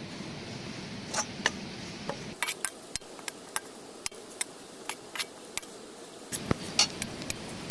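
Metal spatula clinking and scraping against a kadhai while stirring gram flour roasting in oil: irregular sharp clinks, bunched at times, over a steady low rushing background that drops out for a few seconds mid-way.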